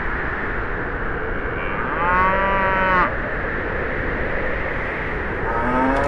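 A steady rushing noise with a single animal call about two seconds in, lasting about a second, and another rising call starting near the end.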